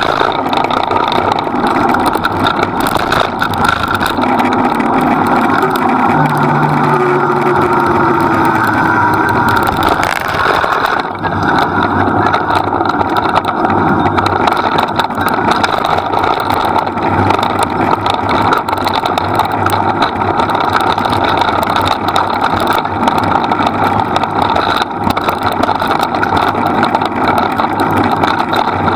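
Steady, loud rushing noise of a rig rolling at speed behind two running dogs.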